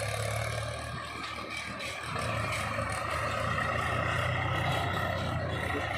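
Heavy diesel engine running steadily at loading work, getting a little louder about two seconds in.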